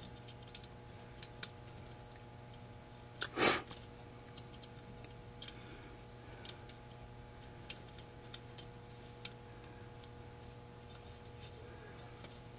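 Small metal clicks and taps as fingers fit the metering rods, arm and shaft of a Carter WCD two-barrel carburetor. There is one louder, brief scraping noise about three and a half seconds in, over a steady low hum.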